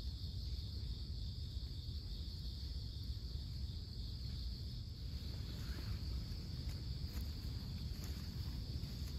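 Insects singing steadily in one unbroken high-pitched band, over a low, steady rumble, with a few faint ticks after about five seconds.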